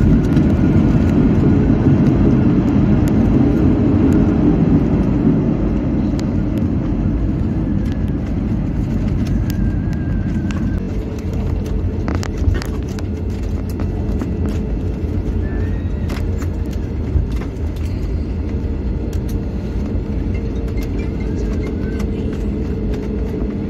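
Jet airliner's engines and rolling rumble after landing: a heavy rumble eases over the first few seconds, then settles into a steadier engine noise with a faint steady tone and a few light clicks.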